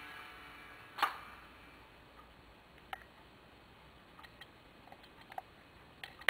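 A few faint, sharp clicks and knocks, the strongest about a second in, then scattered lighter ticks and a quick flurry of clicks near the end.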